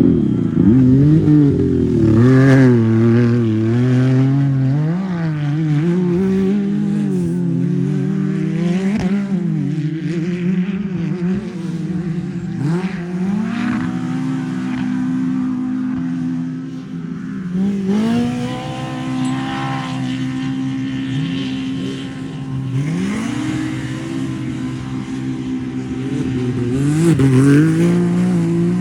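Off-road racing vehicle engines running hard, their pitch climbing and dropping again and again as they accelerate, back off and shift. From about the middle, more than one engine is heard at once at different pitches.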